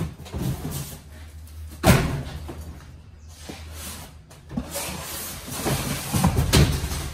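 Cardboard cases of paper goods being pulled off a stack and dropped onto a loaded U-boat cart in a trailer: several dull thuds and scrapes, the loudest about two seconds in and another pair near the end.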